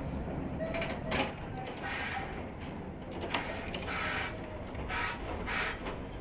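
Electric trolley car running on its track: a steady low rumble with about six short, irregular hissing, scraping bursts.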